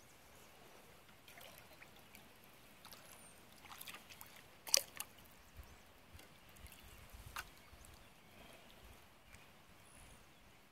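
Faint water dripping and trickling around a canoe, with a few sharp knocks: the loudest is about halfway through, and another comes near the three-quarter mark.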